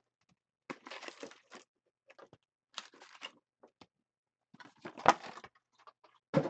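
Foil hockey card packs being torn open and their wrappers crinkled, in several short bursts of tearing and rustling, the loudest about five seconds in, with a short sharp crackle near the end.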